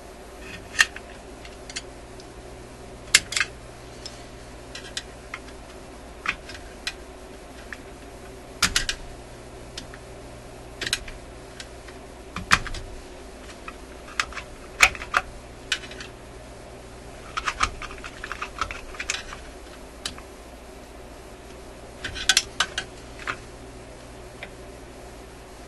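Scattered sharp clicks, taps and small clinks of hand tools and metal parts being handled on a tube radio's chassis, irregularly spaced with a few quick clusters, over a steady low hum.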